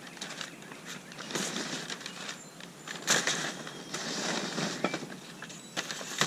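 Packing material rustling and crinkling as parts are dug out of a box, with a few sharp clicks and knocks from handling.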